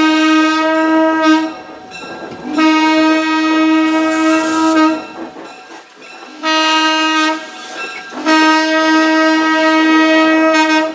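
Train horn sounding the long-long-short-long grade-crossing signal, all on one steady note: a long blast ending about a second and a half in, another long blast, a short one, then a final long blast held to the end.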